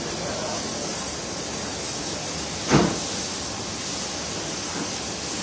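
Steady background hiss of a working warehouse, with one loud thump about two and a half seconds in.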